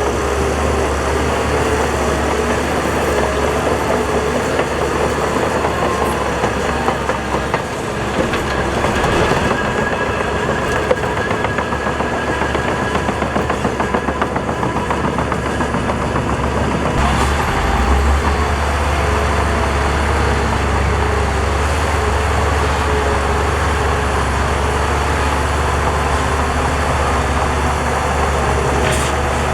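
Heavy diesel earthmoving machinery working: a steady low engine drone with a rapid metallic clatter on top.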